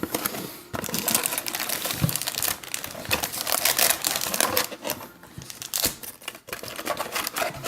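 Plastic and foil trading-card pack wrappers crinkling and rustling as the packs are handled and pulled from the box: a dense, irregular run of crackles starting just under a second in.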